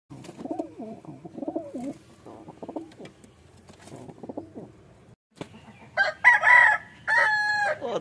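Domestic pigeons cooing in low, wavering calls in their loft. After a brief break, a rooster crows loudly near the end in two long phrases.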